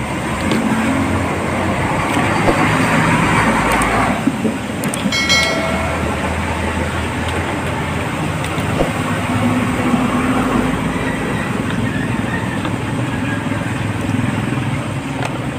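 Steady background traffic noise with vehicle engines running, over a few clicks from a circuit board being handled. A short pitched tone, like a horn or beep, sounds about five seconds in.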